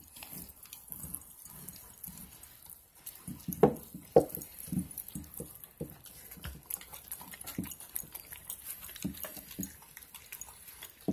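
Husky and malamute puppies chewing and licking raw, partly frozen chicken drumsticks, with irregular wet mouth sounds. Two sharp clicks of teeth about three and a half and four seconds in are the loudest.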